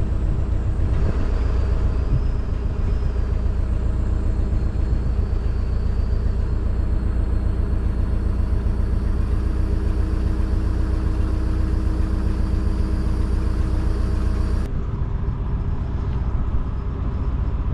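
Hitachi Zaxis 280 excavator's diesel engine running steadily while the quick hitch lifts and lowers a grab, with a faint high whine over it. About fifteen seconds in, the engine note drops and becomes quieter.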